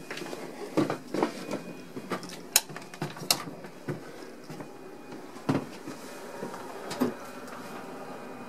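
Irregular knocks and clatter of someone walking through an old electric train's interior, handling doors and fittings, over a faint steady hum.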